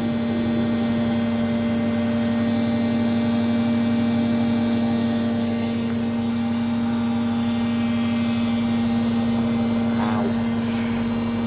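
Hoover Softwave Autowasher A0113 washing machine in its fast final spin, the drum turning at about 1100 rpm, giving a steady whirring hum with a constant pitch.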